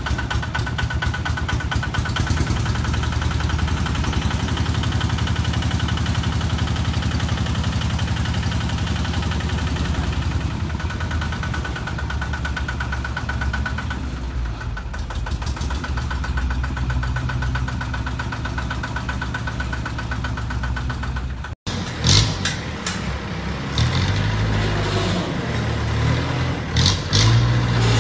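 Dump truck engine running steadily while its tipper bed is raised. After a cut, another truck's engine runs louder, with a few short, sharp knocks.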